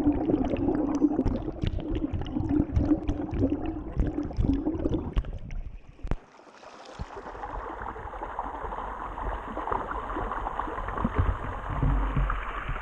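Creek water heard with the camera under the surface: bubbling and gurgling with many small clicks and knocks. About six seconds in it cuts to a small rocky creek, a steady rush of water over stones.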